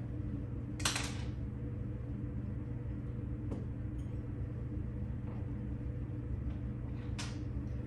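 Steady low background hum, with two brief hissy noises, one about a second in and one near the end.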